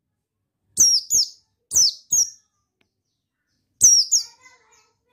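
Caged white-eye (pleci buxtoni) calling: three pairs of sharp, high chirps, each note falling in pitch, spaced about a second apart.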